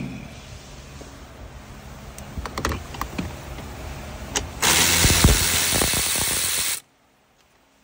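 Clicks and knocks of plastic dashboard trim being worked loose by hand. About four and a half seconds in, a loud rushing noise lasts about two seconds, then cuts off abruptly.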